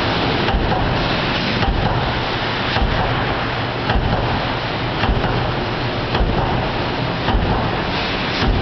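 Mechanical stamping presses running in a press shop: a loud, steady machinery din with a regular dull thump about once a second, like a press cycling continuously.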